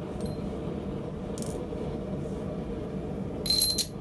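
A short, rapid rattle of metal pieces clinking together with a bright ringing, about three and a half seconds in, over a steady low hum.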